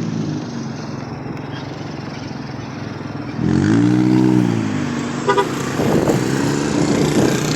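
Wind and road noise while riding on a small motorcycle in traffic. About three and a half seconds in, a vehicle horn sounds for about a second, its pitch rising and falling, with a short toot a couple of seconds later.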